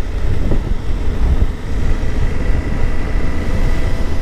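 Suzuki V-Strom 800DE's parallel-twin engine running as the motorcycle rides along, under heavy wind rumble on the microphone.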